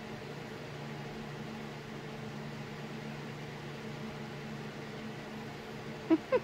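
Steady low hum of room noise, like a fan or air conditioner running. Near the end there are two short calls, each falling in pitch.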